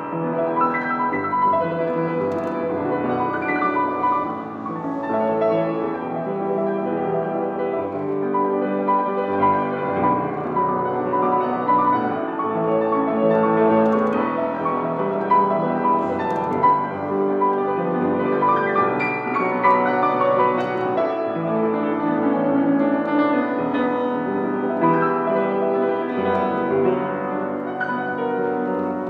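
Piano music playing throughout, a calm classical-style piece.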